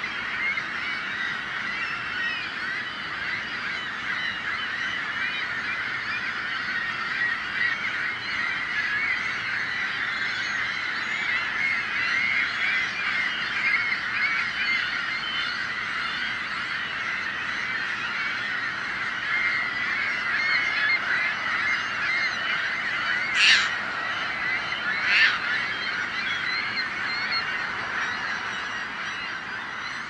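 A large flock of gulls calling all at once, many overlapping squawks and cries in a continuous chorus. Twice, about two-thirds of the way through, a brief louder sound stands out above the flock.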